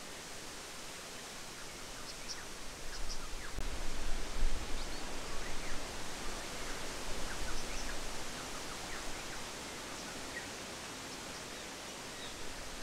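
Strong wind blowing through the bush, buffeting the microphone with low rumbling gusts from about three and a half to nine seconds in. Scattered faint, short high chirps sound over it.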